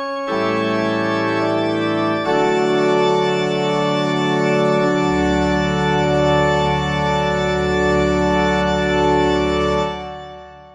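Organ music from a classical fugue holding its closing chords, with a deep bass note entering about halfway through. The final chord dies away near the end as the piece finishes.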